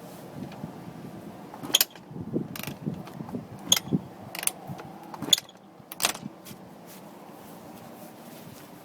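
Kick-start mechanism of a 2001 Honda CR125R two-stroke dirt bike clacking and ratcheting through repeated kicks, about six sharp clacks roughly a second apart. The engine turns over but never fires. The bike quit as if the plug had fouled, and it still has spark and compression.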